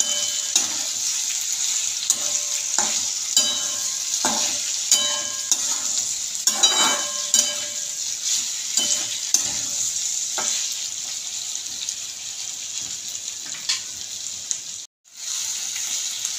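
Okra, tomato, garlic and green chillies sizzling in oil in a kadhai while a flat spatula stirs them, with repeated scrapes against the pan through the first ten seconds or so and fewer after. The sound drops out for a moment near the end.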